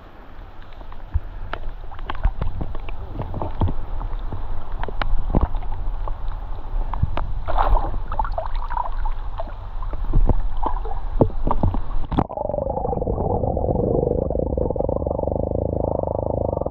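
Water splashing and sloshing in a shallow river as a large fish is held and handled at the surface. About twelve seconds in, the sound turns abruptly muffled and dull: a steady underwater gurgling heard from below the surface.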